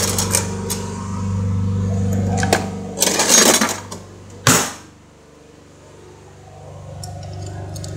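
Rummaging in a kitchen drawer for chopsticks: clicks, a rattle of utensils about three seconds in and a sharp knock a little later. A steady low hum runs underneath, dropping away after the knock and slowly coming back.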